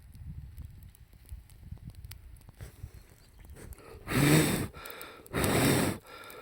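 Campfire crackling faintly over a low rumble, then long puffs of air blown into the fire, each about half a second, about a second apart, starting some four seconds in.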